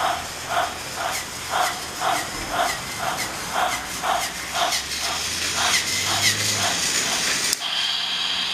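Battery-powered Tomy Trackmaster toy train running along plastic track, with a regular chuffing pulse about twice a second over a faint motor hum. Near the end the sound changes abruptly to a steady hiss with a high tone.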